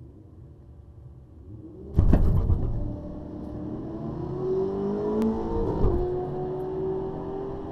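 Holden VF SV6 ute's 3.6-litre V6, heard from inside the cabin, running low for about two seconds, then launching hard with a brief judder of knocks. The engine note rises steadily, drops at a gear change near six seconds in and climbs again. The owner says his too-low-rpm launches made the car axle tramp and bog down.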